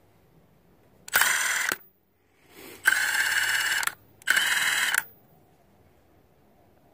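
Milwaukee M18 Fuel One-Key impact driver hammering on a lug nut through a long impact socket, in three separate bursts: a short one about a second in, a longer one of about a second, then a shorter one.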